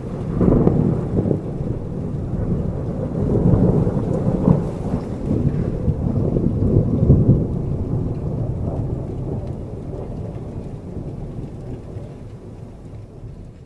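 Thunder: a long, low rumble that swells up in the first second, crackles with louder peaks through the middle, then slowly fades away.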